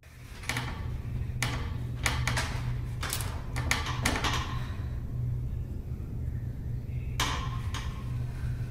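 A steady low hum under irregular knocks and taps. The taps come unevenly, bunched in the first four seconds with two more near the end.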